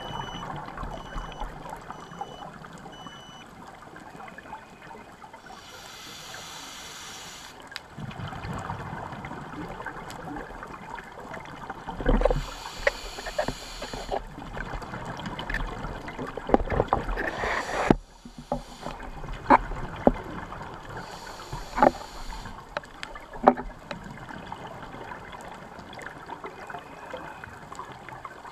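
Underwater sound of a scuba diver's regulator breathing: loud bursts of exhaled bubbles every five seconds or so over a steady watery background, with scattered sharp clicks.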